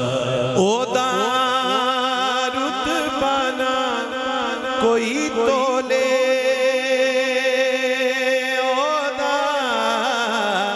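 Devotional naat singing into a microphone: a man's voice drawing out long, wavering melodic lines without clear words, over a steady held tone underneath.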